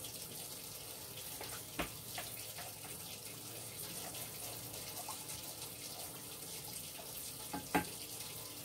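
Kitchen sink tap running steadily, left on until the water comes through hot, with a couple of light knocks about two seconds in and near the end.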